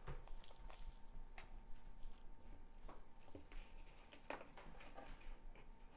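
Faint scattered clicks and light rustling from hands handling a plastic packet of needles and needle threaders, then sheets of cross-stitch fabric and a printed pattern.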